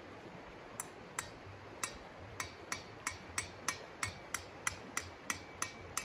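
A run of about fifteen sharp knocks, starting slowly and settling into a steady beat of about three a second, the later ones with a faint metallic ring.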